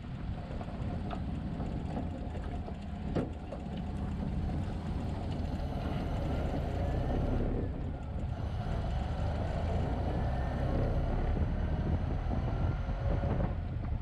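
1929 Ford Model A pickup on the move, heard from the drafty cab: its four-cylinder engine runs steadily under wind and road noise. There is a single knock a little after three seconds in.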